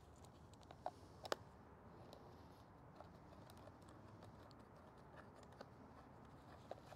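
Near silence with a few faint small clicks and taps from handheld gear being handled, likely an antenna analyzer being unplugged and its coax connector worked; the sharpest click comes about a second in.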